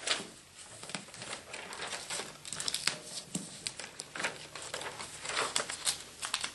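Crinkling and crackling of AED electrode pads and their packaging being unwrapped and handled, in many short, irregular crackles.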